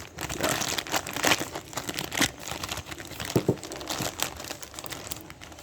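Paper or plastic crinkling and rustling as it is handled, in short irregular crackles.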